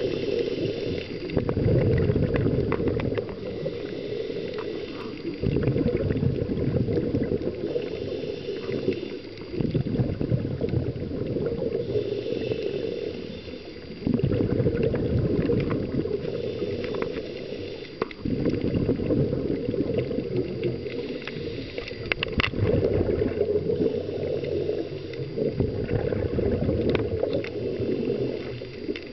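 Scuba regulator breathing heard through an underwater camera: exhaled bubbles rush out in gurgling bursts about every four seconds, with a fainter hiss of each inhaled breath between them.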